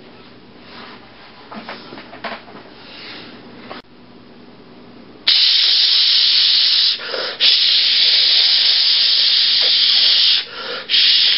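Loud, steady hissing that starts suddenly about five seconds in and runs on, broken twice for a moment; before it there is only faint rustling.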